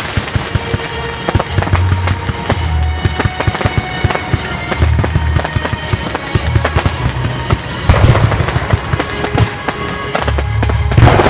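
Fireworks display: a rapid run of bangs and crackling from bursting shells, with heavier volleys about eight seconds in and again near the end.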